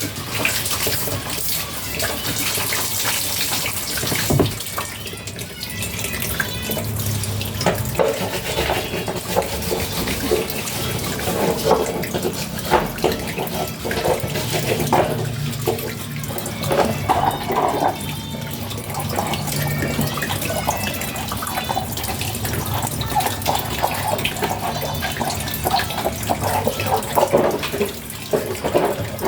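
Tap water running and splashing as washing machine parts are rinsed under it, with irregular knocks and clatter throughout.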